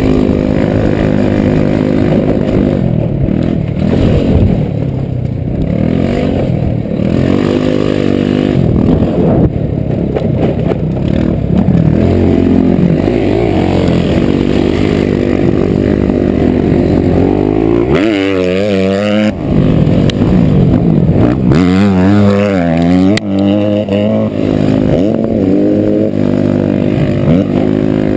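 Honda Elite 80cc scooter's single-cylinder engine running under changing throttle as it is ridden over a dirt track, its pitch rising and falling continually and wavering twice in the second half, with low wind rumble on the microphone.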